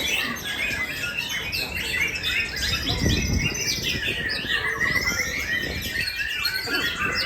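Many caged contest songbirds singing at once: a dense, continuous tangle of overlapping chirps, whistles and trills.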